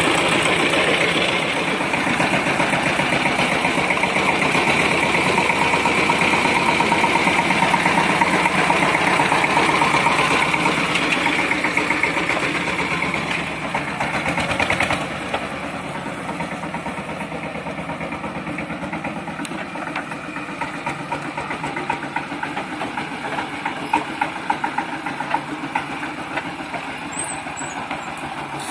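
FORTE 18 hp mototractor engine running steadily as it pulls a trailer loaded with logs. It is louder for the first half, then drops in level with a few short knocks and clatters near the end.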